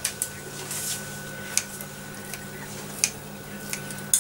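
Food scissors snipping through cooked egg noodles: about six short, sharp snips, roughly one a second, over a steady low hum.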